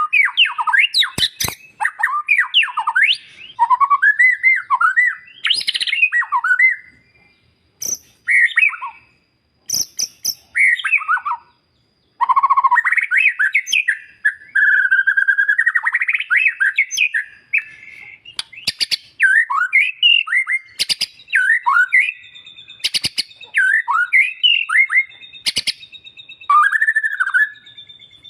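White-rumped shama singing a fast, varied song of whistled and chattering phrases, with sharp clicks scattered through it and two short pauses about a third of the way in.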